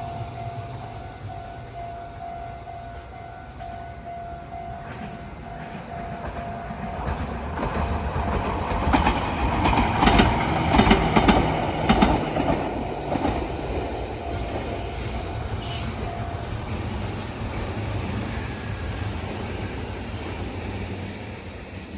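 Japanese level-crossing warning bell ringing in a steady repeating tone while a Meitetsu Gamagori Line electric train passes. The train's wheels clatter loudest about 9 to 12 seconds in, the bell stops about 16 seconds in, and the train's sound fades away.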